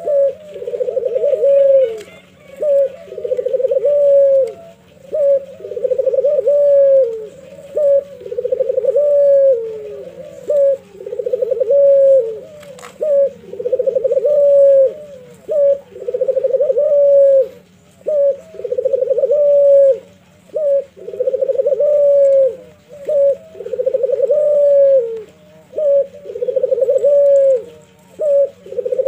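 Caged ringneck (Barbary) dove, the Indonesian puter, cooing in its performance song: a continuous series of low rolling coos, each about a second long, repeating roughly every two seconds with short clipped notes between them.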